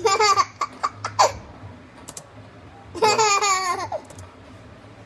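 A young child laughing: a run of quick high-pitched laughs at the start, then a longer, wavering bout of laughter about three seconds in.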